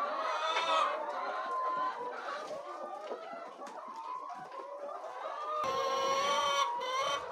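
Chickens clucking and calling over one another, with one longer, stronger call about six seconds in.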